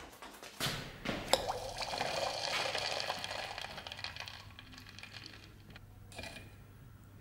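Red-hot steel knife blade quenched in a bucket of oil: a plunge about half a second in and a sharp click, then a sizzling, bubbling hiss that fades over a few seconds. A short burst of sizzle returns near the end as the blade is moved in the bath.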